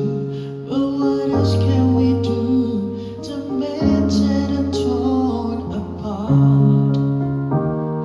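Music: sustained chords over low bass notes, the harmony changing every second or two, with light high ticks over the top.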